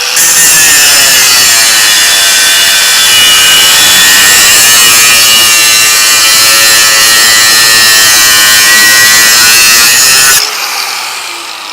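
4.5-inch grinder with a cut-off disc cutting through a steel bolt: a loud, harsh grinding whose pitch sags and recovers as the disc is loaded. About ten seconds in, the cut stops abruptly and the tool runs on quietly.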